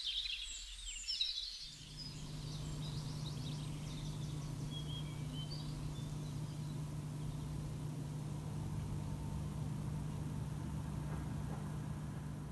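Recorded birdsong at the close of the track fades out over the first few seconds, played from a vinyl record. From about two seconds in there is a steady low hum with surface hiss as the stylus rides the groove near the label after the music has ended.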